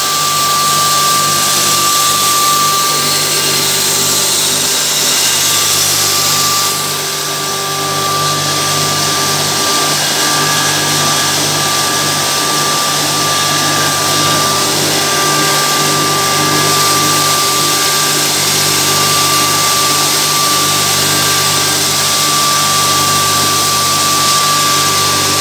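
Electric high-speed pulverizer grinding mill running steadily while grain is fed into its hopper, with a sustained high whine over a low motor hum.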